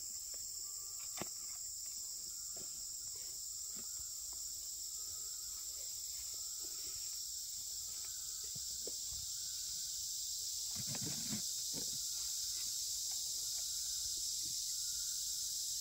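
Steady high-pitched drone of forest insects, with a faint short note repeating about once a second and a few scattered knocks, the strongest cluster about eleven seconds in.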